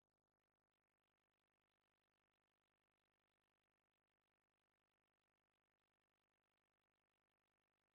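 Near silence: the sound track is muted.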